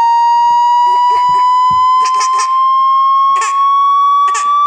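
A loud, steady high tone with overtones, rising slowly in pitch throughout, with several short noisy bursts over it from about a second in.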